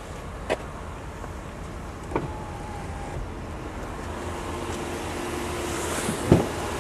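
Handling knocks and rubbing from a handheld camera moving about inside a car cabin over a steady hum. There are small knocks about half a second and two seconds in, and a sharper thump about six seconds in as the camera reaches the door frame.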